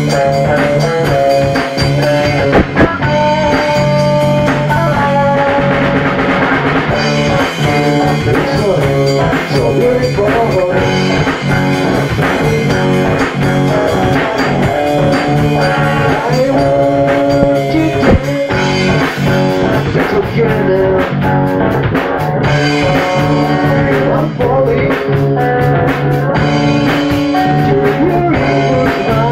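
Rock-funk band playing a song in rehearsal: guitar and drum kit.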